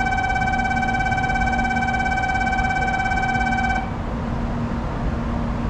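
Electronic departure bell on a Shinkansen platform ringing steadily, a high continuous ring that cuts off abruptly about four seconds in, signalling that the train is about to leave. A low steady hum continues under it.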